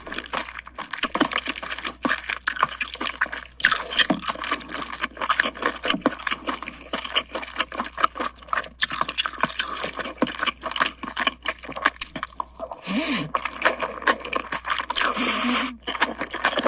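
Food sizzling and crackling in hot oil, a dense steady patter of pops: Henan-style guanchang (starch sausage) frying on a griddle.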